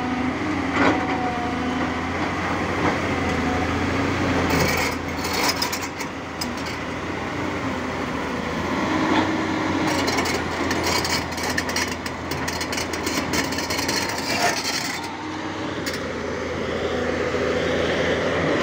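Tata Hitachi EX200LC tracked excavator's diesel engine running steadily, with crushed stone clattering and crunching under the machine in two spells, about five seconds in and again from about ten to fifteen seconds in.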